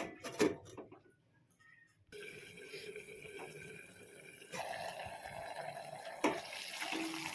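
A pot of pork, jute-leaf and potato curry boiling, a steady bubbling hiss that starts suddenly about two seconds in and grows louder a couple of seconds later. A single sharp knock comes about six seconds in.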